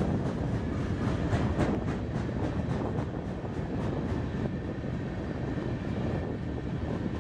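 Freight train of open-top gondola cars rolling past, a steady rumble of cars and wheels on rail. Sharp wheel clicks come through mostly in the first few seconds.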